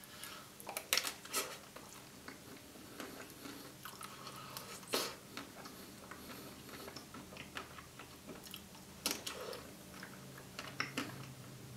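Close-miked biting and chewing of a white-chocolate-coated Maxibon ice cream sandwich dipped in custard. Wet mouth sounds, with a few sharper moments about a second in, around five seconds and around nine seconds.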